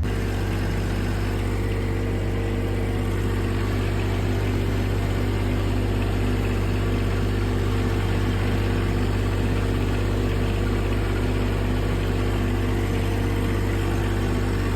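Small compact tractor's engine running steadily at an even speed, with a constant low hum and no change in pitch.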